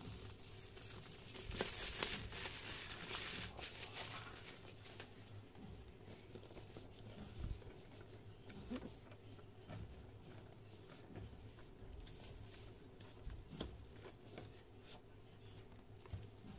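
Clear plastic wrap crinkling and tearing as it is pulled off a cardboard box, loudest in the first few seconds. Then softer rustling and light taps as the cardboard box and its sleeve are handled.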